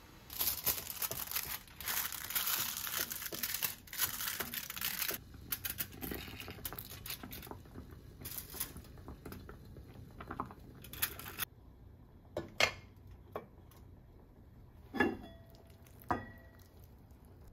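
Aluminium foil being torn and crinkled over the top of a chawanmushi cup, rustling loudly for about five seconds and then in shorter bursts. Near the end come a few sharp knocks, the last with a brief ring as an enamelled cast-iron pot lid is lifted.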